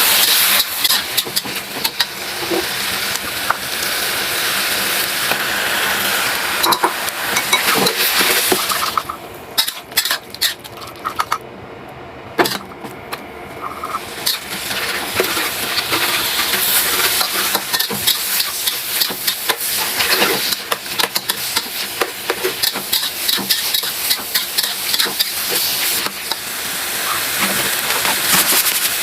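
Food sizzling as it is stir-fried in a hot pan, with a spatula clicking and scraping against the metal. The sizzle thins out for a few seconds about nine seconds in, then comes back.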